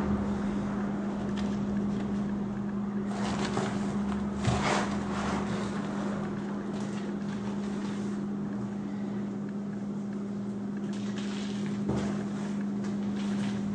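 A steady low hum throughout, with a few brief rustling, scraping sounds of hands working damp potting substrate around a plant pot, the clearest about three to five seconds in and again near the end.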